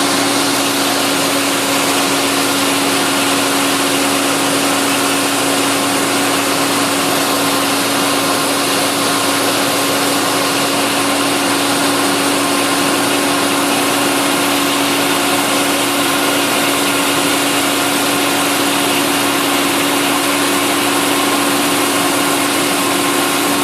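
Massey Ferguson 9690 combine harvester running steadily in a corn harvest, a constant hum with a steady mechanical rush of noise and no change in speed.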